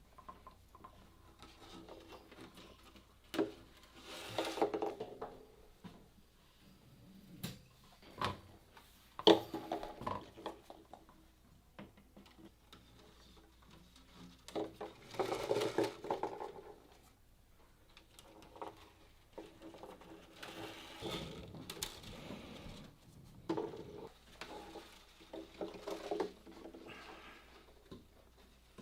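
Irregular taps, knocks and clattering of hand work with wooden pieces and tools, coming in scattered clusters with quieter gaps between.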